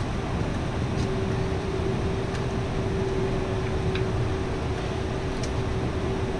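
Cabin noise inside a Boeing 747 taxiing: a steady rush from the engines at low power and the cabin air, with a steady droning tone running through it. A few faint ticks come and go.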